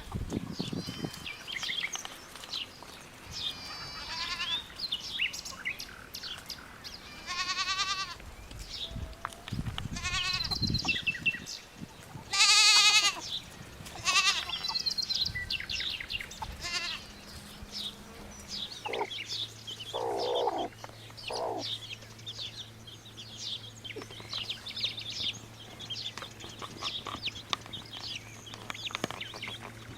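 Goats bleating, several wavering calls in the first half, with small birds chirping.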